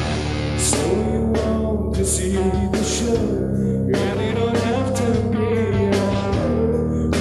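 Live rock band playing electric guitar, bass and drums, with cymbal hits, and a male voice singing a long, wavering melody over them from about a second in.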